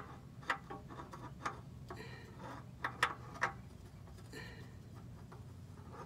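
Light irregular clicks and taps, a dozen or so in the first three and a half seconds, from hands working a new spin-on oil filter against its mount on the engine underside, trying to get it to thread on.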